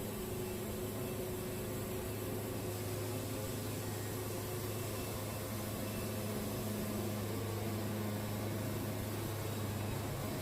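Wood-Mizer portable sawmill running with a steady, even hum.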